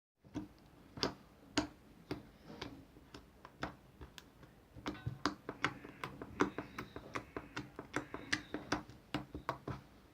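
Slime being squeezed and pressed by hand, giving a run of sharp, irregular clicks and pops that come faster about halfway through.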